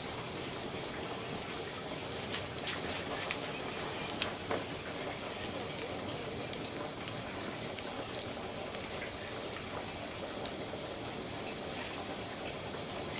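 Crickets chirping in a steady, high, rapidly pulsing trill, over scattered pops and crackles from a wood fire.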